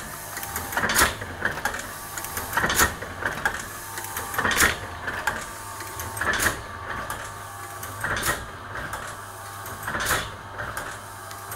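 Thompson automatic platen printing press running empty, driven by a single-phase electric motor: a loud clack about every two seconds as the press cycles, lighter clicks between, over a steady motor hum.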